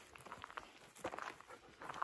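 Footsteps crunching on a gravel road, several steps in a walking rhythm.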